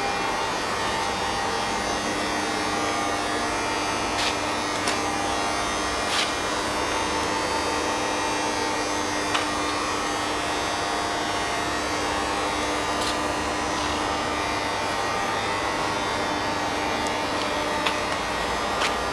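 Heyligenstaedt CNC lathe running steadily: an even machine hum with a whine, broken by a few short clicks and ticks scattered through.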